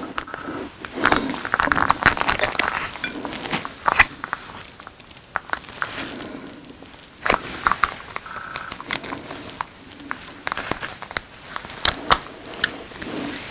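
Plastic crinkling and rustling, with sharp clicks and taps, as the chicken's takeout packaging is handled and opened.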